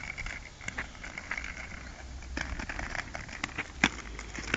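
Inline skate wheels rolling over a rough paved path with a low rumble, broken by irregular sharp clicks and knocks, the loudest a little before the end.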